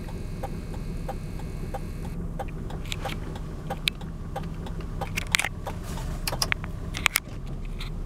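A car's hazard-light flasher relay ticking steadily, about two ticks a second, over the low hum of the engine idling. From about two seconds in there are a few sharper, irregular clicks and knocks.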